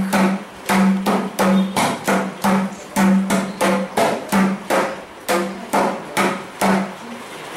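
Mridangam being played: a quick, steady run of strokes, about four or five a second, many of them ringing at one steady pitch, with crisp slaps in between.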